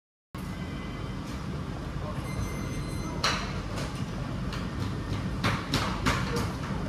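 Restaurant room noise with a steady low rumble, cutting in abruptly just after the start, and a handful of short, sharp taps between about three and six and a half seconds in, fitting a finger tapping the buttons of a touchscreen ordering tablet.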